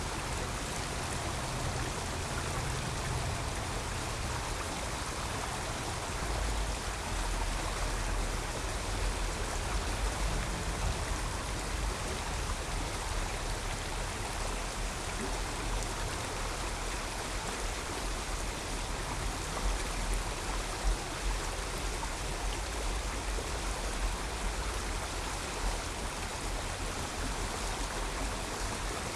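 A creek running, a steady rushing of water, with a low rumble of road traffic underneath.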